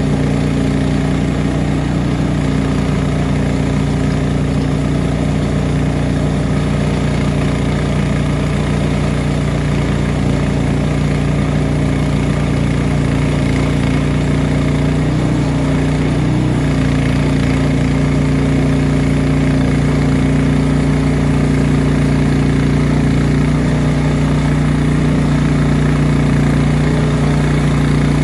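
Small gasoline engine of a portable bandsaw mill running steadily, with a brief change in pitch about halfway through.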